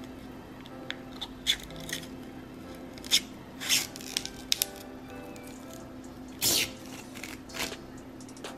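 Clear plastic protective film being peeled off a hard phone case, crinkling and rustling in a string of short bursts, with a sharp crackle about three seconds in and a longer rustle near six and a half seconds. Soft background music plays underneath.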